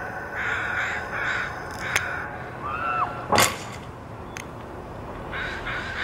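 Crows cawing: about three caws in the first two seconds and two more near the end. Beneath them runs the steady rumble of a playground zip wire in use, and a sharp knock comes a little over three seconds in.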